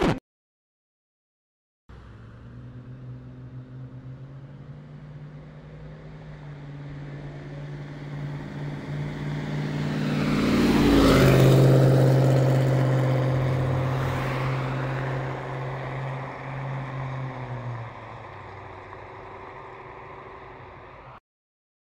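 A car driving past: its steady engine note grows louder as it approaches, peaks about eleven seconds in with a drop in pitch as it passes, then fades away before cutting off suddenly near the end.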